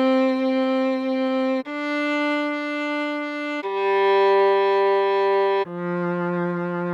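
Viola playing a slow melody one note at a time, each note held for about two seconds: a middle note, two steps up, then a drop to a low note near the end.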